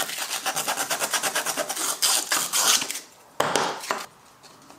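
Hard 3D-printed plastic dust port adapter scraping and rubbing in rapid, even strokes as it is worked to fit a tool's oval dust port, a tight fit. One louder, short scrape comes a little after three seconds in.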